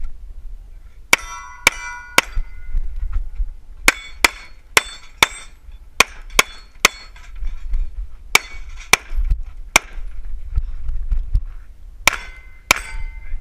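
Pistol fired in quick strings of two to four shots, about fifteen shots in all, each crack followed by a short ringing.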